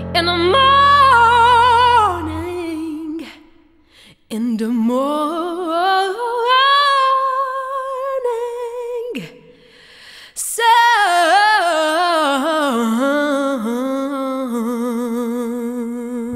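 Background music: a wordless sung melody with wide vibrato, in three long phrases with short breaks about four and ten seconds in. A low held chord sounds under the first phrase.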